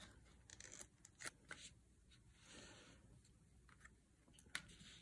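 Faint handling of card stock and patterned paper: a soft rustle and scattered light taps, with a sharper tap about four and a half seconds in.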